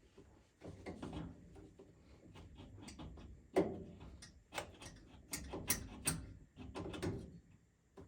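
Hands handling furnace parts: an irregular run of sharp clicks and knocks over low rustling, most of them in the second half.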